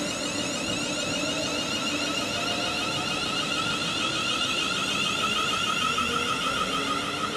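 London Midland Class 350 Desiro electric multiple unit running past, its traction motors giving a steady high-pitched whine of several tones over the rumble of wheels on rail.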